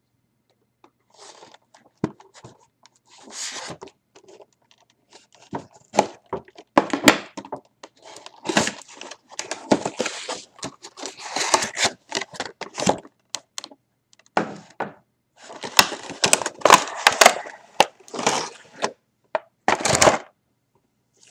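Cardboard figure box being handled and opened: irregular rustling and scraping of the cardboard, broken by sharp clicks and knocks.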